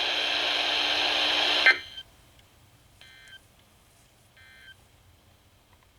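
Weather radio receiver: a steady hiss that cuts off abruptly about two seconds in, then two short, faint data bursts about a second and a half apart. These are the EAS end-of-message code that signals the alert is over.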